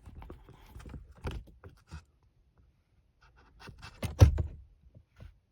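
Flat screwdriver scraping and prying at a plastic retaining clip of a dashboard screen, with a string of small scrapes and clicks, then a loud sharp snap about four seconds in as one side of the clip comes free.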